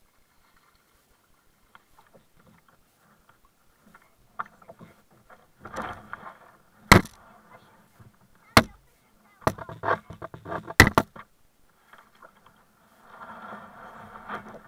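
Kayak paddle splashing through the water, with several loud, sharp knocks on the plastic hull of the sit-on-top kayak in the middle of the stretch.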